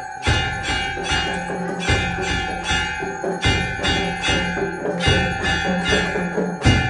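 Temple bells rung rapidly in aarti worship, about three to four strikes a second, with a deep drum beat about every second and a half.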